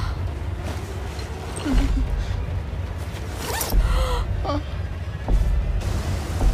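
Frightened gasps and short whimpering cries from two people, heard a few times over a low, pulsing rumble.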